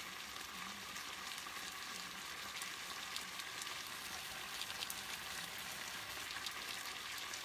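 Pasta in an artichoke and cream-cheese sauce sizzling in a frying pan: a steady hiss with scattered small crackles.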